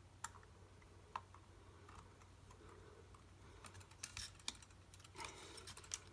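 Faint, scattered small clicks and taps of a lens spanner and metal lens parts being handled, with a quick cluster of clicks about four seconds in.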